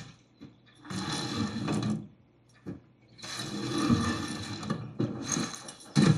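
Sound effects from a film or show soundtrack being played back: several separate bursts of noise, the longest about two seconds, with a short sharp one near the end.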